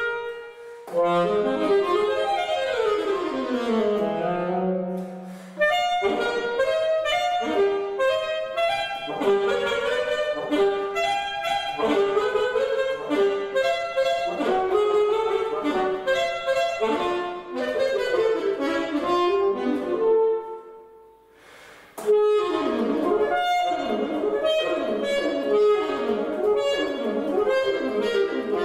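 Unaccompanied alto saxophone playing fast classical passages of quick runs and leaps. About four seconds in, a descending run ends on a held low note. About three-quarters of the way through, the playing pauses for roughly a second, then the rapid runs resume.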